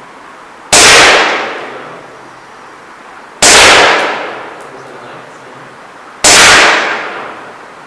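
Three shots from a CZ P-09 gas blowback airsoft pistol, each a sharp crack about three seconds apart. Each crack echoes for about a second in an empty derelict building.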